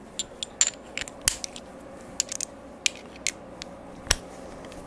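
Metal hand tools, sockets and a ratchet, clinking and clicking as they are handled and picked out of a tool tray: a dozen or so irregular light clinks, with two sharper knocks about a second in and near the end.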